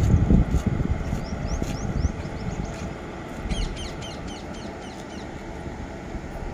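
Two coupled electric locomotives rumble over the rails as they pull away, loudest at first and then fading to a steady lower rumble. Birds chirp over it, with a quick run of chirps around the middle.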